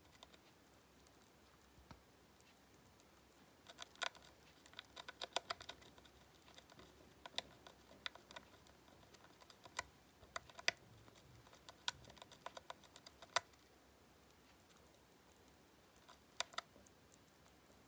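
Syrian hamster gnawing on a cheese-shaped chew toy: faint, quick, irregular crunching clicks in clusters. They start about four seconds in, go on for about ten seconds, pause, and come again briefly near the end.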